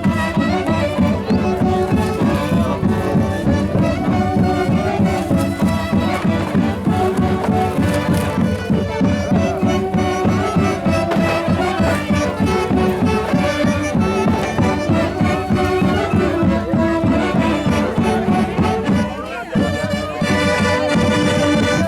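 Band music with brass over a strong steady beat. It dips briefly near the end.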